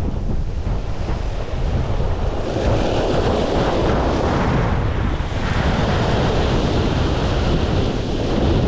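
Sea waves breaking and washing over a rocky shore, with two loud surges of surf, and wind buffeting the microphone with a steady low rumble.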